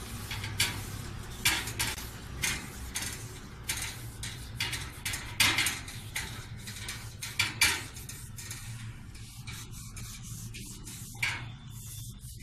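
Stainless-steel wire kitchen trolley basket being scrubbed by hand with soapy water: irregular rubbing strokes along the metal rail, with a few sharper clicks of the wire frame. A steady low hum runs underneath.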